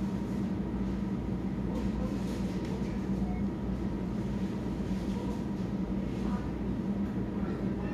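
Supermarket room tone: a steady low hum, probably from the store's refrigeration and ventilation, with faint, indistinct background sounds.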